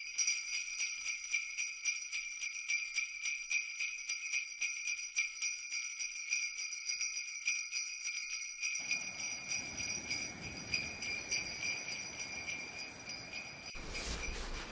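Sleigh bells shaken in a steady fast rhythm, about four or five shakes a second, ringing throughout. A low rushing noise joins in about nine seconds in.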